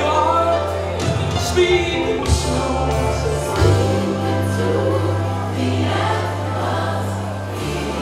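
Gospel music with a choir singing over held bass notes.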